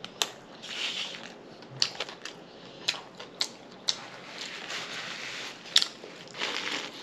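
Close-miked chewing of crunchy chips: irregular sharp crunches, about a dozen, with softer chewing between them.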